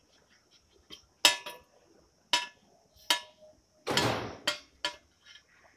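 Copper pipe and a tube bender being handled, making a string of sharp metallic clicks and knocks, some with a short ring, about one every half-second to second. A longer scraping rattle comes about four seconds in.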